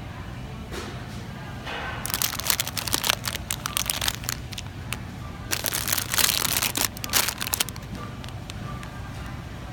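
Clear cellophane bag of candy crinkling as it is handled, in two bursts of about two seconds each, over a low steady hum.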